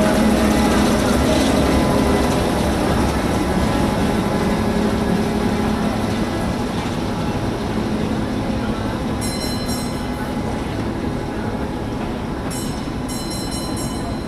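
Diesel train engine running with a steady hum and rumble, slowly fading as it moves off along the line. Brief high-pitched squeals come twice in the second half.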